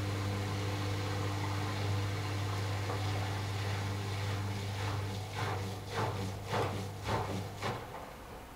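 Washing machine drain pump humming steadily while it empties the last rinse water. From about five seconds in it gurgles and slurps five or six times as it starts drawing air, then it stops near the end.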